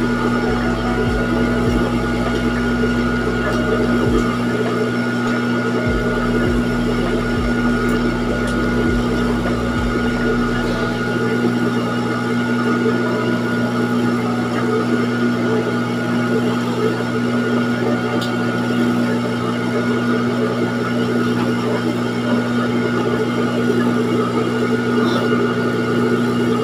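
Industrial sewing machine's motor humming steadily, left running while the needle stands still.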